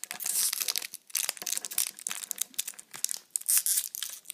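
Foil wrapper of a Pokémon trading-card booster pack being peeled open by hand at its crimped seam, crinkling and tearing in quick runs of crackles with a brief pause about a second in.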